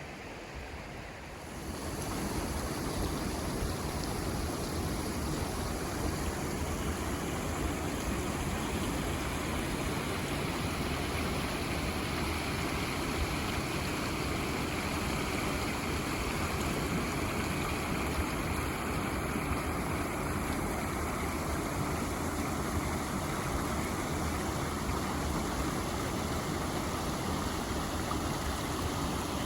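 River flowing in the spring thaw, a steady rush of moving water that grows louder about two seconds in.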